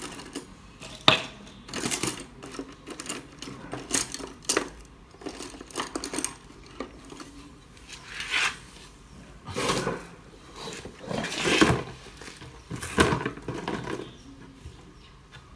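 Irregular light taps and clicks of painting tools being handled on a hard surface, with a few short scrapes and a louder clatter about three-quarters of the way in.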